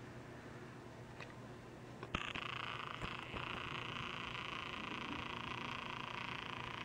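A compact camera's lens zoom motor whirring steadily, starting with a click about two seconds in, over a low steady hum.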